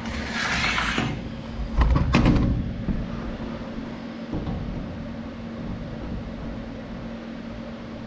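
Aluminum diamond-plate truck toolbox being shifted: a sliding scrape in the first second, then a few heavy clunks about two seconds in. A steady hum from the Lincoln Square Wave TIG 200 welder's cooling fan runs underneath.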